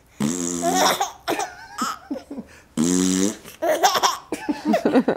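A man making a silly, low, raspy vocal noise twice, once near the start and again about three seconds in, with a baby laughing in short bursts between and after them.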